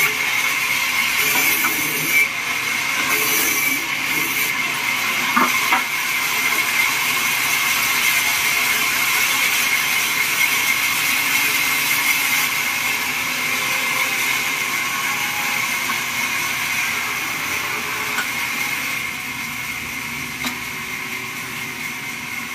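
Homemade bandsaw mill running steadily without cutting: a continuous machine whine with a constant high tone over a rushing hiss. A few short knocks sound about two and five seconds in.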